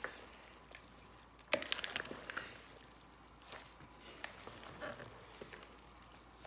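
Faint wet squishing and stirring of chopped pork and onions dressed in mayonnaise being mixed by hand in a glass bowl, with a few small clicks and one sharp knock about a second and a half in.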